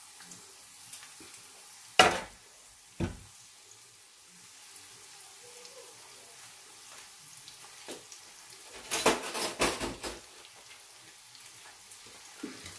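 Chopped onion and sliced garlic frying in oil in a pot, a faint steady sizzle. Two sharp knocks come about two and three seconds in, and a short burst of clattering around nine to ten seconds in.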